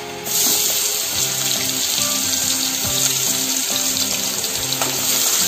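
Chopped onion and green chillies hitting hot oil in a kadai and sizzling, a steady loud hiss that starts suddenly about a quarter-second in. Background music plays under it.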